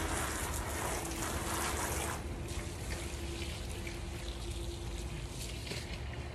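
Garden hose spraying water onto fabric, soaking a cycling jersey and a cotton T-shirt; the spray cuts off about two seconds in, leaving quieter water sounds.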